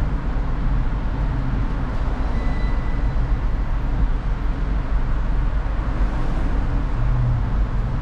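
Steady low rumble of a car on the move, engine and road noise running evenly with no sudden sounds.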